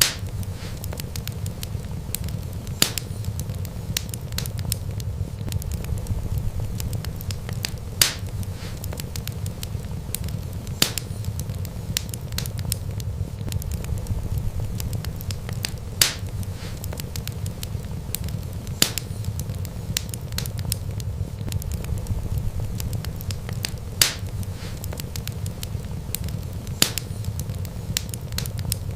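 Wood fire burning: a steady low rumble of flames under constant light crackling, with a loud sharp pop every three to five seconds.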